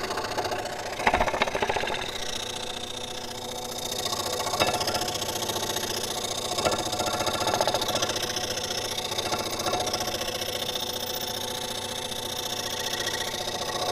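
Scroll saw running, its reciprocating blade cutting through a wooden board with a steady fast chatter and a few sharper knocks.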